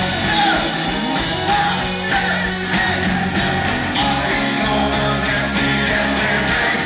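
Live rock band with many musicians playing together, with electric guitars, drums, keyboards and violins, and voices singing.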